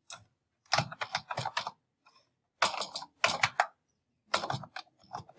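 Computer keyboard typing in short bursts of rapid keystrokes with brief pauses between them.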